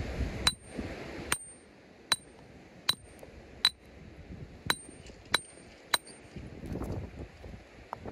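Steel geologist's rock hammer striking a hard fossil-bearing rock: eight sharp metallic clinks, each with a brief ring, roughly one every three-quarters of a second, then a pause near the end. Wind rumbles on the microphone at the start.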